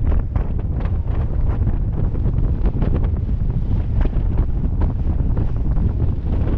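Heavy wind buffeting on the microphone, a steady deep rumble, over water rushing and splashing past the hull of a Mills 41 racing sailboat moving fast, with frequent short crackles of spray.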